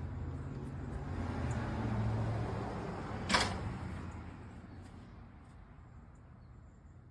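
Magnetic-resistance exercise bike's belt drive and flywheel whirring as it is spun up, growing louder for about two seconds, then slowly dying away as it coasts down. A single sharp click about three seconds in.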